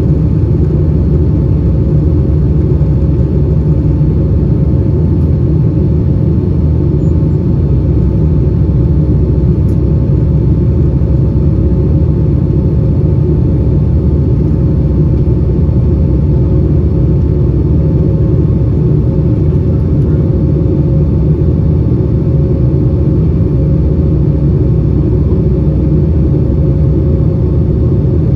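Steady cabin noise of a Boeing 757-200 in flight, heard from a window seat by the wing: a deep, even rumble of engines and rushing air, with a faint steady hum running under it.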